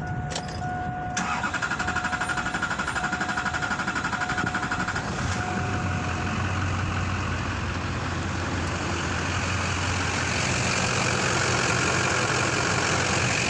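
A Duramax 6.6-litre V8 turbodiesel in a 2002 GMC Sierra 2500HD is cranked by its starter for about four seconds with a rhythmic chugging, then catches and settles into a steady diesel idle. It restarts right after the fuel system was pumped up by hand with the primer pump, after dying and losing fuel pressure, which the owner bets is from a leaking seal in the primer.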